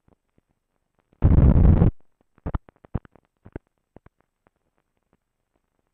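Clicks and pops from the optical soundtrack of film leader as it runs, with one loud, rough burst of noise lasting under a second about a second in. The clicks come thickly at first and thin out later.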